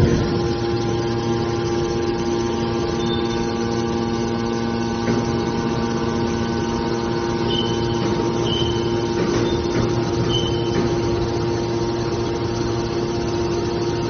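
Hydraulic scrap metal baler's power unit running with a steady hum, with a few brief high squeaks around the middle.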